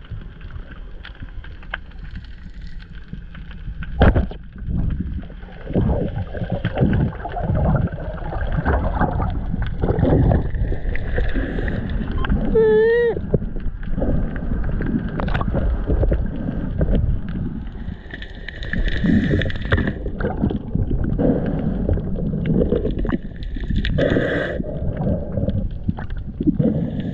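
Water rushing and sloshing against an underwater camera's housing, a steady low rumble, with a sharp knock about four seconds in and a brief wavering tone near the middle.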